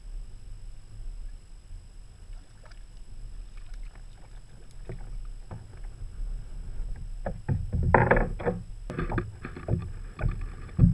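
Kayak on the water: a steady low rumble with faint small knocks, then a run of louder, irregular splashy bursts about seven to ten seconds in.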